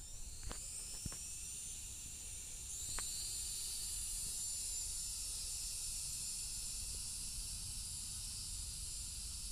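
Hubsan H507A quadcopter's motors and propellers spinning up for takeoff: a high whine that rises in pitch over the first three seconds, then holds steady as the drone lifts off and hovers. A few faint clicks come in the first three seconds.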